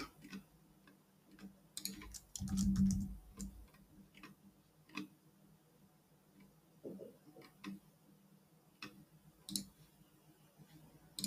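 Scattered clicks of a computer mouse and keyboard, with a quick run of several clicks about two seconds in and single clicks every second or two after that.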